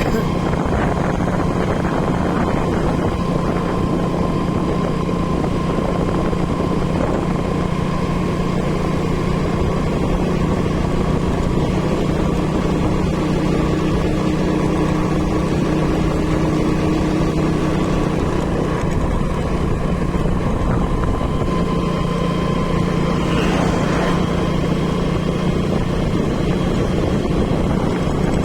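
Steady engine and road noise of a moving vehicle, a continuous drone with a low hum and a fainter higher whine.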